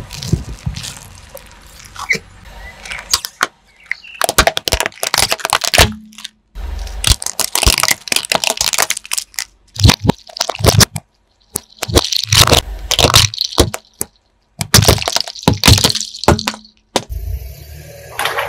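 Car tyre crushing small plastic toys, a Rubik's cube among them: a run of sharp plastic cracks and crunches, in several short takes with brief silences between them.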